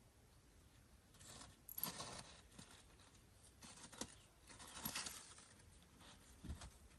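Faint rustling and crackling in a few short bursts, like something moving through dry leaves or grass.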